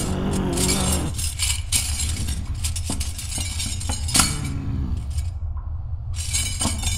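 Sharp clinks of small hard objects, one every second or so, over a steady low rumble.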